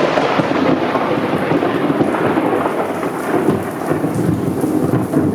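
Loud, continuous rumble of thunder from a very close lightning strike, easing slowly, with rain falling throughout.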